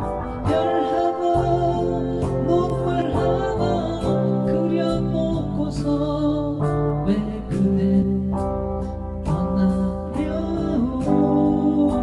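A song playing as background music: guitar accompaniment under a singer's voice.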